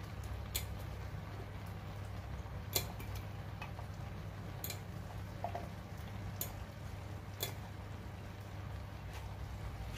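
A few light, sharp ticks every second or two over a steady low hum, as marinated pork spare rib pieces are taken from a stainless bowl and laid by hand on rice cooking in a clay pot.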